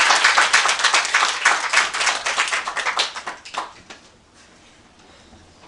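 A small audience clapping at the end of a song, the applause thinning out and dying away about four seconds in.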